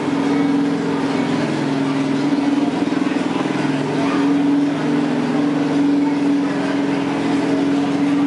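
Craftsman riding lawn mower's engine running at a steady speed under load as it pulls a weighted sled in a kids' pulling contest.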